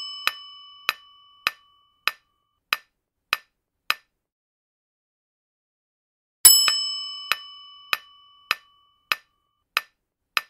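Quiz countdown-timer sound effect: a bell-like chime rings out while clock-like ticks sound about every 0.6 s. The ticks stop at about 4 s, and after a pause of about two seconds a new chime rings and the ticking starts again.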